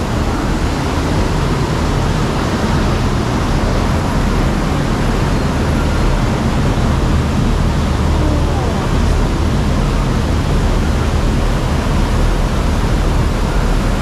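Steady, loud rush of water around a river rapids ride raft, with mist spray falling over the raft.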